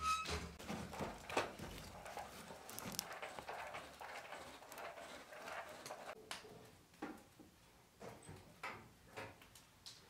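Firewood being pushed into and poked around the firebox of a steel wood-burning cook stove: irregular knocks, clatters and scrapes of sticks against each other and the metal. Scraping and shuffling fill the first half, and separate sharp knocks come in the second half.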